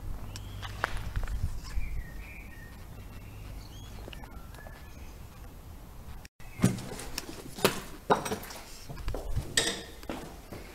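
Small birds chirping in short, rising and falling calls. Then, after an abrupt cut, footsteps crunching over debris, with sharp clinks and knocks.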